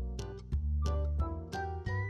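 Upbeat background music: a bass line under a melody of short, regularly paced notes.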